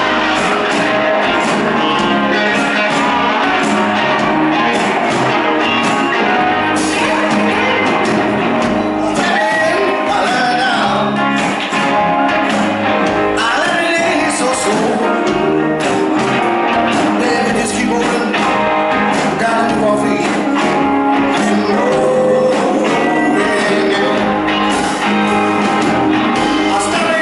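Live rock band playing: a man singing lead over electric guitars, bass and drums.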